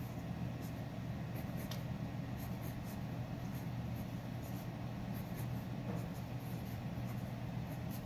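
Paper Mate mechanical pencil scratching on paper in many short strokes while drawing, over a steady low hum.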